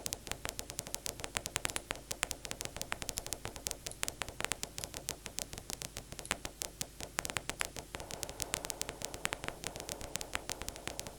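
Synthesized paper-crumpling effect from the Vital software synth: a dense, irregular crackle driven by randomly generated MIDI notes, over a layer of filtered background noise. About eight seconds in, the noise in the middle range gets louder.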